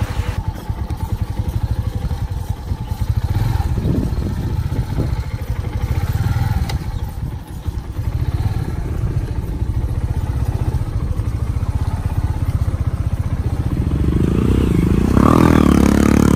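Motorcycle engine running with a steady low pulsing as the bike rides a rough dirt track; near the end the engine revs higher as a motorcycle is pushed through a shallow stream crossing.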